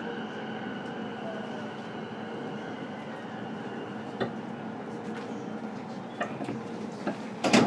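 JR East E233-series commuter train standing at a station, its onboard electrical equipment giving a steady hum made of several tones. A few light clicks, then one loud, sharp knock near the end.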